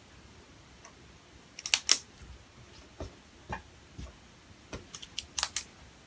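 A pen writing on a paper sheet: sharp clicks about two seconds in and again near the end, with light taps and scratches between. Under it, the faint steady fan noise of a Supermicro SuperServer SYS-5028D-TN4T idling.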